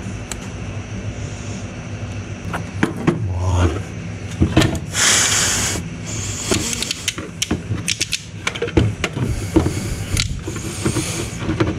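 Small clicks and scrapes of pliers and a small knife working the pins of a plastic ECM wiring-harness connector, over a low steady hum. A short hiss stands out about five seconds in.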